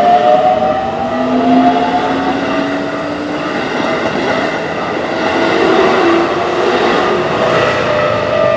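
Keikyu electric train passing a level crossing at speed: a motor whine rising in pitch over the first few seconds, then rushing wheel-and-rail noise that builds to its loudest about two-thirds through. The crossing's warning bell rings steadily over it.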